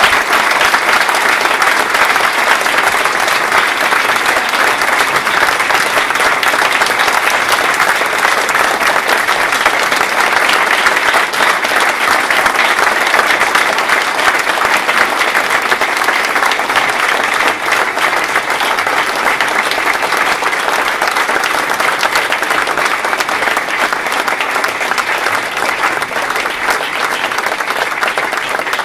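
Sustained applause from a large crowd clapping, dense and steady, easing slightly near the end.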